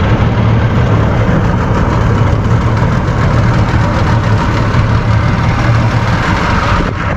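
An engine running steadily at a constant speed, a continuous low hum under a dense rushing noise.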